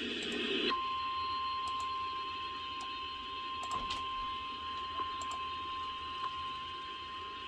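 NOAA Weather Radio warning alarm tone (the 1050 Hz single tone) relayed over the radio. It starts about three-quarters of a second in after a moment of static and holds steady over hiss, with a faint click about every second and a quarter. It signals that a weather warning message, here a severe thunderstorm warning, is about to follow.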